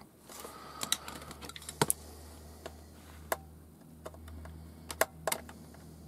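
About a dozen sharp, irregular clicks and taps of a precision screwdriver working a screw in a transistor radio's plastic case, over a low steady hum.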